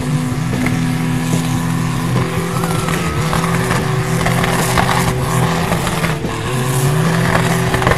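Modified pulling tractor's big V-engine running flat out under load as it drags the sled down the dirt track, a loud, steady, rough engine noise.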